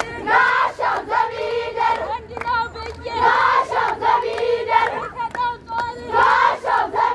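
A group of girls singing a Shaday song together in chorus, with hand claps. Loud high sung phrases return about every three seconds.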